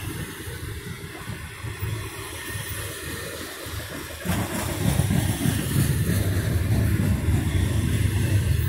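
Double-stack intermodal well cars of a freight train rolling past, a steady low rumble and clatter of steel wheels on the rails that grows louder about four seconds in.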